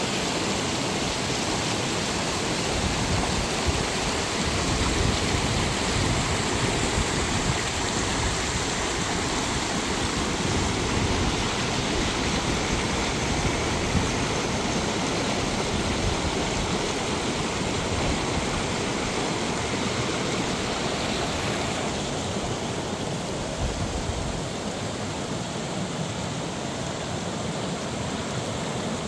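Mountain creek rushing, a steady hiss of water that eases a little past two-thirds of the way through.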